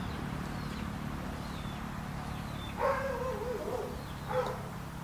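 Two short animal calls over a steady low background: a wavering cry nearly three seconds in and a shorter one near the end, with faint high bird chirps.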